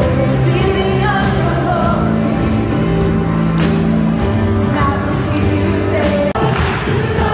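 A song with singing fills a packed auditorium. The sound breaks off for a moment about six seconds in.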